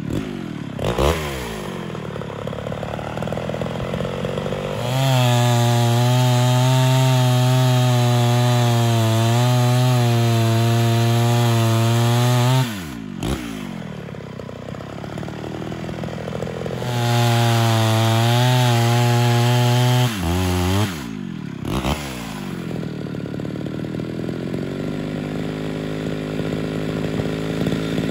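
Ported Homelite Super XL Auto two-stroke chainsaw held at full throttle through two long cuts in a firewood block. Each cut ends with the revs falling back to idle. It idles between the cuts and through the last few seconds.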